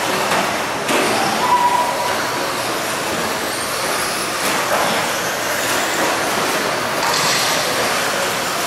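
Electric 2WD short-course RC trucks racing on an indoor dirt track: a steady mix of motor whine and tyres scrabbling on dirt, with a knock about a second in.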